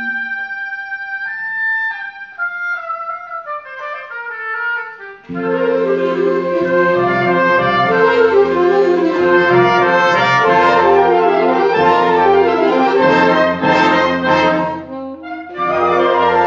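Brass ensemble music. A single melodic line steps downward for about five seconds, then the full ensemble comes in loudly, drops out briefly near the end and starts again.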